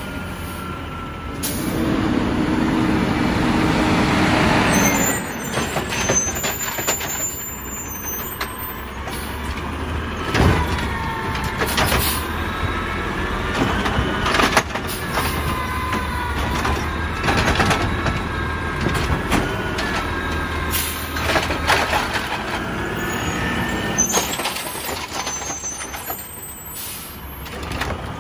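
Peterbilt 320 garbage truck with a DaDee Scorpion automated side-loader arm. Its engine runs throughout, with a burst of air-brake hiss about two seconds in. Then, as the engine works the hydraulics, a wavering whine comes from the arm as it lifts a wheeled trash cart over the hopper and tips it out, with several sharp knocks and bangs as the cart is shaken empty.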